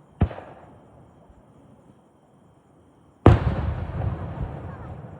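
Two aerial firework shells bursting: a sharp bang a quarter second in, then a louder one about three seconds later whose boom rolls on and fades slowly.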